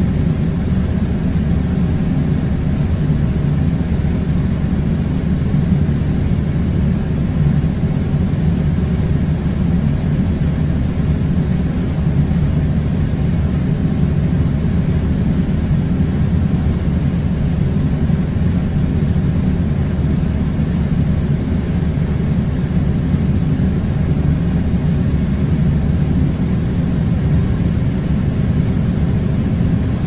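Steady, loud low-pitched rumble with a faint hum in it, never changing.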